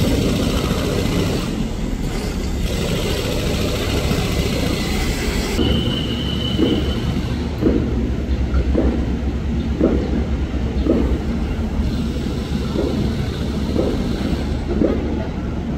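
Tokyo Metro 6000 series electric commuter train standing at the platform, its equipment giving a steady low rumble. A hiss stops abruptly about five and a half seconds in, followed by a short high beep, then a rhythmic pulsing about once a second.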